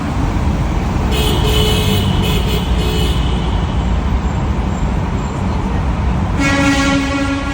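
Steady low rumble of road traffic, with a pitched tone about a second in lasting around two seconds and a louder, lower one near the end.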